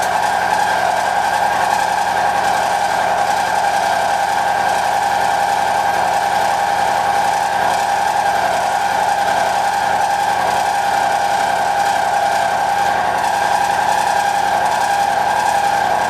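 Kitamura Bridgecenter-10 machining center milling a metal block with an end mill: a loud, steady cutting whine made of two held tones, one about twice the pitch of the other, over a hiss, unchanging throughout.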